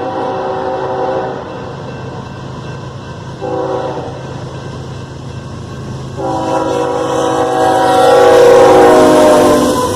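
Diesel locomotive air horn sounding a chord of several notes over the low rumble of the passing locomotives: a long blast that ends about a second in, a short blast a little past three seconds, then a long, loudest blast from about six seconds until just before the end — the long-long-short-long grade-crossing signal.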